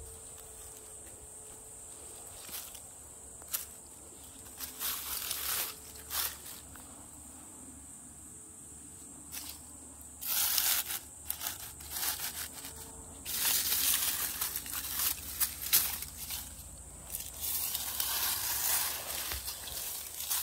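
Dry pine needles and fallen leaves rustling and crunching as someone moves through the forest litter, in scattered bursts at first and busier and louder from about halfway. A steady high insect buzz runs underneath.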